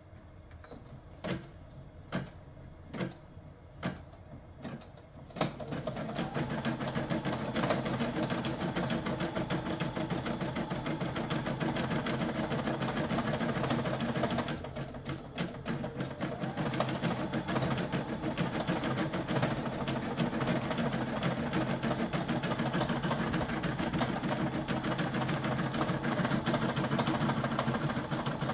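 Brother SE625 embroidery machine: a few single clicks, then about five seconds in it starts stitching the next thread colour, the needle running in a fast, steady clatter that eases briefly about halfway.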